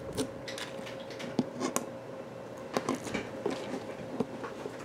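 Fingers picking and peeling the paper backing off small sticky foam squares on a cardboard piece: scattered soft clicks, scratches and crinkles.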